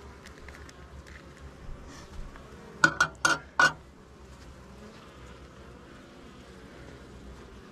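Honeybees buzzing around an open hive in a steady hum. About three seconds in, four quick sharp knocks: a metal hive tool knocked against the wooden hive.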